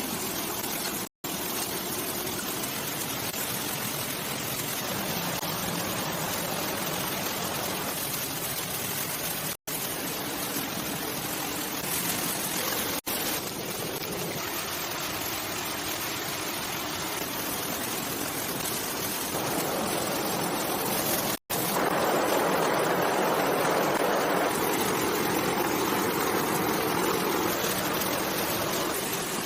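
Steady rushing noise of running water. It gets louder after a sudden break about two-thirds of the way in, and is cut to silence for an instant four times.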